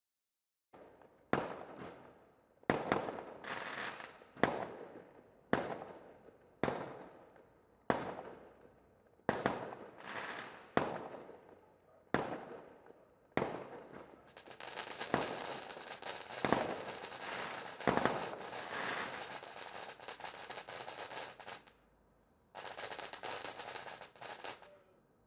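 Fireworks going off: a run of sharp bangs about once a second, each trailing off in a long echo. About halfway through they give way to dense, continuous crackling, which stops briefly and starts again near the end.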